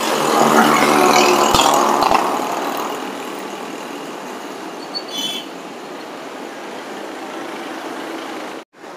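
Street traffic noise: a motor vehicle's engine close by is loudest for the first two seconds or so, then it settles to a steady traffic rumble. A brief high-pitched chirp comes about five seconds in.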